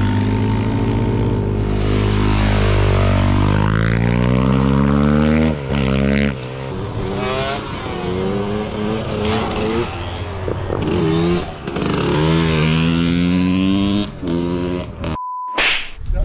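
Motorcycle engines revving and accelerating, their pitch climbing and dropping again and again, with more than one bike heard. Near the end the sound drops out briefly for a short steady electronic beep.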